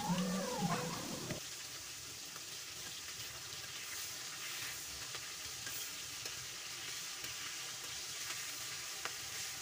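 Tiger prawns frying in hot oil in a metal kadai: a steady sizzle, with a few light taps and scrapes of a metal spatula turning them.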